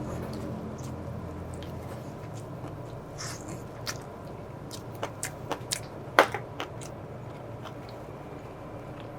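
Close-up eating sounds: a person chewing, with scattered small clicks and taps, the sharpest about six seconds in.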